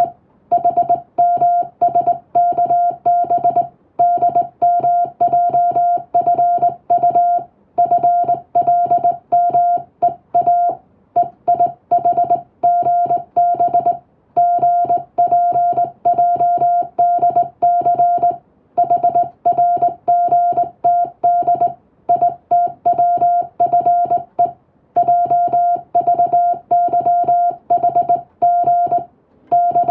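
Morse code (CW) in English text: a single steady beep switched on and off in quick dots and dashes, grouped into letters and words with short pauses between them.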